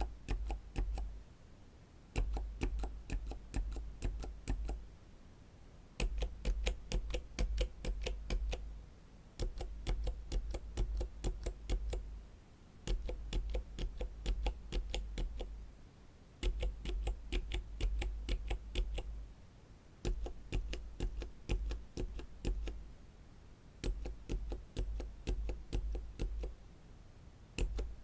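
Silent mechanical keyboard switches being pressed and released in quick runs of soft clacks. A new run starts every three to four seconds, as one switch after another is tested.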